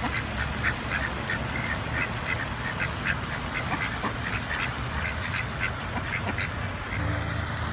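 White domestic ducks quacking, a rapid run of short quacks several times a second, over a steady low rumble.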